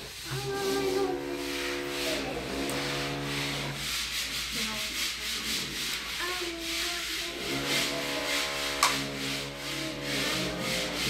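Power drill running in about four bursts of one to three seconds each, a steady whine over a grinding hiss.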